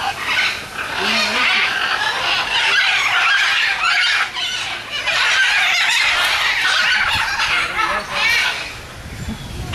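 A dense chorus of birds squawking and chattering at once, many short calls overlapping without a break.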